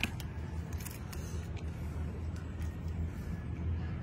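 Shell of a large cooked tiger prawn cracking as it is peeled by gloved hands, a few sharp clicks and crackles over a steady low hum.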